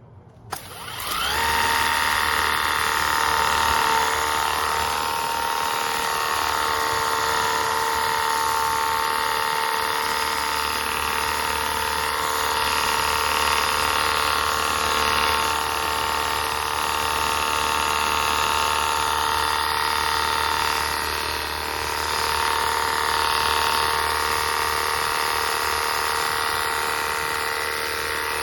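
Ontel Turbo Jet HydroX5 Pro cordless pressure washer starting about a second in, its battery-driven motor and pump spinning up with a short rising whine, then running steadily with a high electric whine and the hiss of the water spray.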